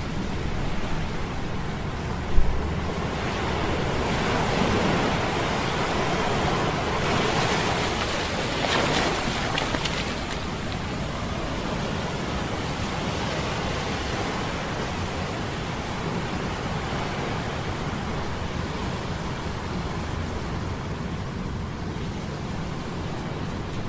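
Sea storm sound effect: a steady rush of surf and wind that swells for a few seconds and then eases, over a low steady hum of metal gears, with one brief low thump a couple of seconds in.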